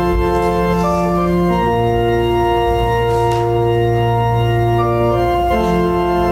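Organ playing slow, held chords, the harmony changing about a second and a half in and again near the end.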